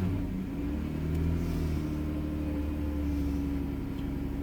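Dodge/Chrysler engine running at a steady idle. Its fuel pump is fed through a jumper across the fuse socket because the TIPM fuse box's sealed internal fuel pump relay has failed, the fault behind the no-start.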